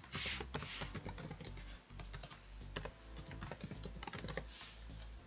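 Typing on a computer keyboard: a quick, irregular run of key clicks as an email address is entered.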